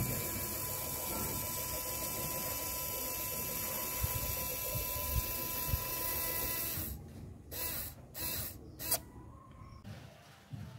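Small N20 geared screw motor whining steadily as it drives the mini vise's jaw, cutting off about two-thirds of the way in. A few short, sharp sounds follow.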